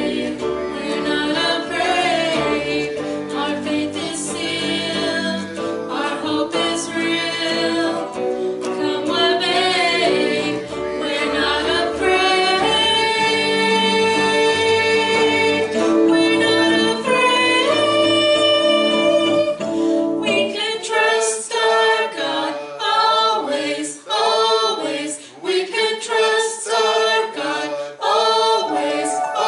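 Live worship band playing a contemporary praise song, with women's voices singing the melody over keyboard and guitar. About twenty seconds in the bass and low accompaniment drop away and the voices carry on nearly alone.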